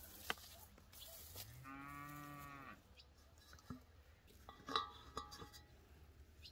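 A cow mooing once, a single call of about a second that rises at the start and falls away at the end. About three quarters through, a louder knock with a short ring as fruit is put into an enamel bowl.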